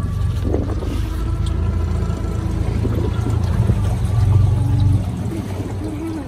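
Outboard motor of a small aluminium boat running steadily as the boat moves along, a low hum that gets a little louder about four seconds in.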